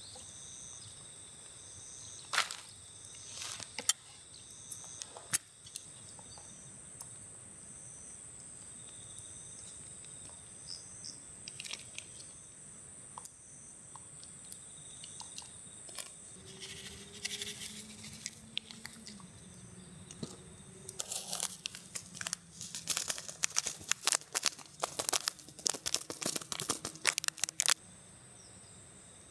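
A steady high-pitched insect drone runs throughout. Sharp crackling, crinkling clicks come now and then, then fall thick and loud for several seconds near the end.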